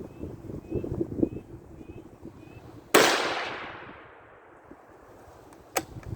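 A single shot from a .17 HMR Ruger American bolt-action rifle about halfway through: a sharp crack that rings off over about a second. Wind buffets the microphone before it, and there are two short sharp clicks near the end.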